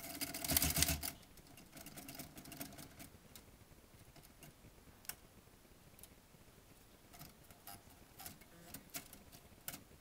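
Royal manual typewriter keys being struck: a quick burst of clacking strikes in the first second, softer strikes to about three seconds in, then single clacks every half second to second.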